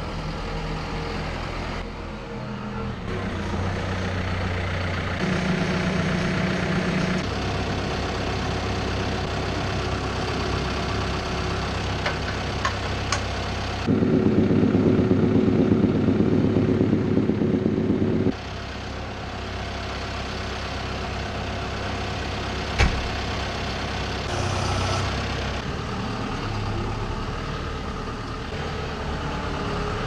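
John Deere 5085M tractor's diesel engine idling steadily. It is clearly louder for about four seconds midway, and there is one sharp click about three quarters of the way through.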